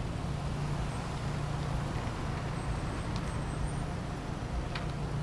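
Steady low engine hum and road noise from cars idling and rolling slowly past in a queue.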